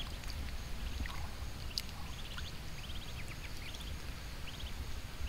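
Muscovy ducklings dabbling at the water's edge: quick runs of faint, high clicking over a steady low rumble of water.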